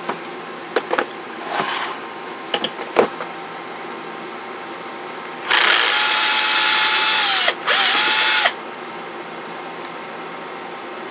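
Small electric screwdriver backing out a screw from a CB radio's case. It runs in two bursts, about two seconds and then under a second, with a steady motor whine that dips as it stops between them. A few light clicks come before it.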